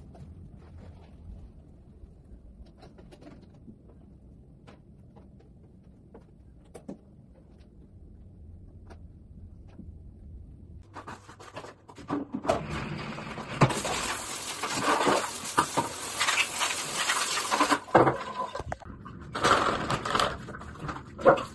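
Quiet floor mopping with a faint low hum, then about halfway through loud rushing, scraping and splashing noises of a bathroom being cleaned, in two stretches with a short break between them.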